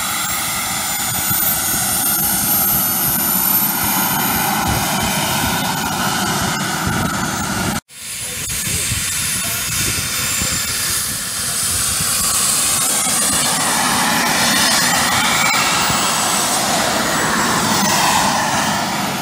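Model turbine jet engines on radio-controlled A-10 Warthog models running at taxi power: a high whine over a rushing jet noise. The sound cuts out for a moment about eight seconds in, and near the end a high whine slides down in pitch.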